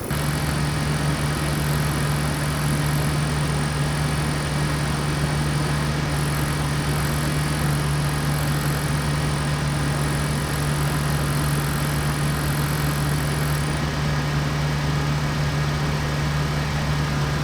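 Pickup's cabin blower fan running steadily, a constant hum with a rush of air and an odd noise over it. The noise comes from dry leaves in the blower housing touching the fan.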